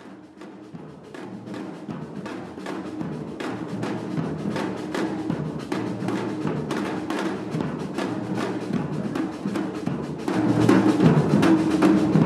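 Drum-led music fading in: a steady beat of drum strikes over a sustained pitched backing, growing louder and stepping up in level about ten seconds in.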